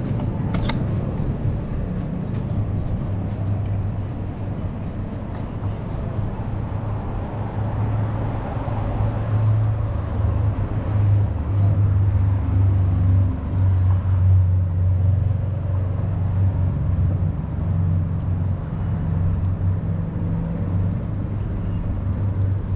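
City street traffic: a steady low engine drone from a nearby vehicle over a general road rumble, getting stronger about halfway through.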